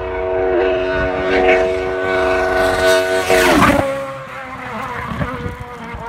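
Rally car coming flat out with its engine held at high revs, a steady high-pitched note with brief small dips about half a second and a second and a half in. About three and a half seconds in it passes close by and the pitch drops sharply, then fades as the car goes away.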